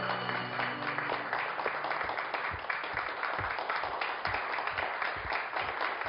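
Audience applauding steadily: many hands clapping in a large room. Background music fades out in the first couple of seconds.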